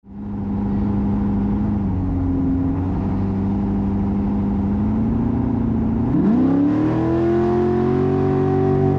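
Off-road race vehicle engine running steadily, then revving up smoothly about six seconds in and holding at the higher speed.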